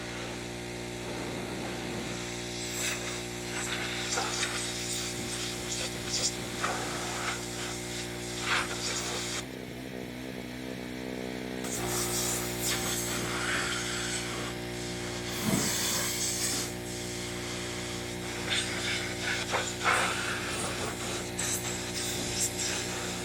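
Gas-engine pressure washer running steadily, with irregular hissing and scraping from the spray and cleaning work. The drone changes briefly near the middle.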